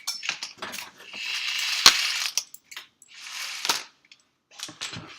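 Hands handling a smartphone box and its packaging: sharp clicks and two rustling, scraping stretches, the loudest click about two seconds in.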